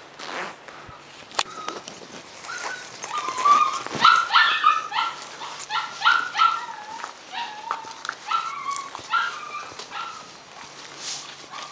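An animal's short high-pitched cries, repeated rapidly at about two a second; they start a couple of seconds in and tail off near the end.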